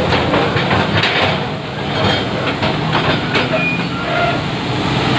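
Kobelco hydraulic excavator's diesel engine running steadily under load, with irregular metallic clanks and knocks from the machine at work.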